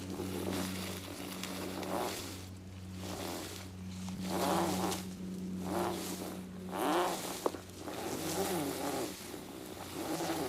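Steel cable being pulled in repeated strokes, a rasping, zipper-like sound about once a second, over a steady low hum.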